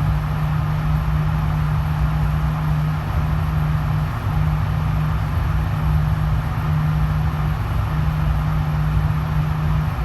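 Steady low hum with an even rushing-air noise from an indoor shooting range's ventilation system.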